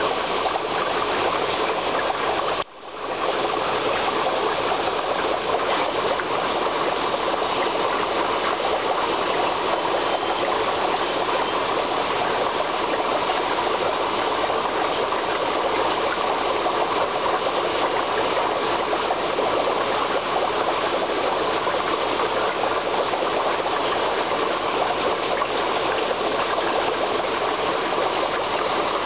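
Steady rush of running water in an aquarium tank, dropping out briefly about three seconds in.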